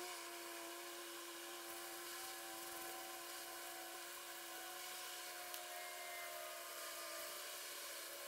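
Faint, steady machine hum holding a few steady tones over a high hiss.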